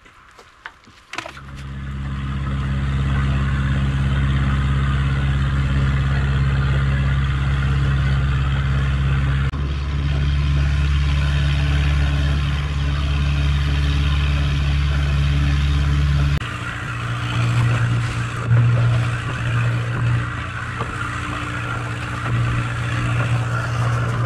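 Boat engine towing a small fishing skiff. It starts about a second in, builds over a couple of seconds, then runs steadily with a deep hum, and its note shifts near the two-thirds point. Water and wind noise run under it.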